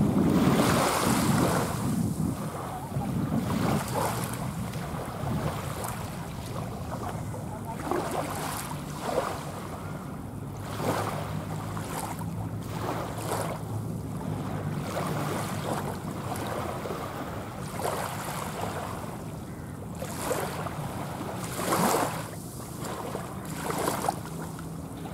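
The jet engines of a departing Airbus A320-216 (CFM56 turbofans) climbing away overhead: a steady, noisy rumble with a faint low hum, loudest in the first couple of seconds and then settling lower as the airliner recedes. Gusts of wind hit the microphone now and then.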